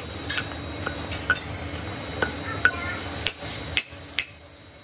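Hammer knocking hardened sand mould off a freshly cast iron brake drum: the shakeout of the casting. About ten sharp, uneven metallic knocks, some ringing briefly.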